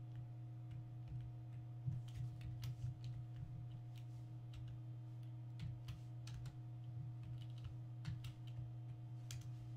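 Typing on a computer keyboard, key clicks coming in short bursts, over a steady low electrical hum.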